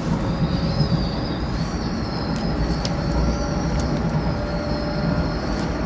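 Docklands Light Railway B07 stock train running, heard from inside the car: a steady rumble with an electric motor whine that shifts slightly in pitch, and a few faint clicks.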